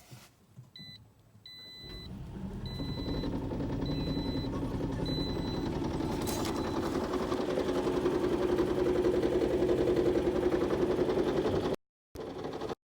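A row of short electronic beeps, then, about two seconds in, the 2018 RAV4 Hybrid's 2.5-litre four-cylinder petrol engine starts from cold and runs with a fast knocking rattle. The owner reports that the knock on cold start sometimes goes away when the gas is pressed. The sound cuts out briefly near the end.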